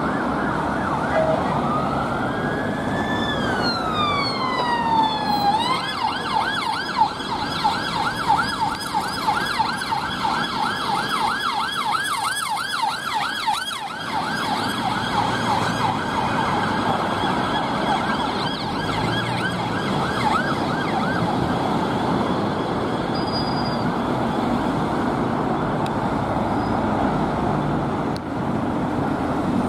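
Police car siren passing over road traffic: one slow wail rising and falling, then switched to a fast yelp about six seconds in, which fades out a few seconds after the car goes by.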